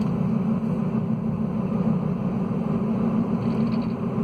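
Loud steady tire roar heard inside a Kia Forte Koup's cabin at about 30 mph, a low rough drone from tires cupped on the inside edge of the tread and dry-rotted, a sign of a suspension or alignment problem.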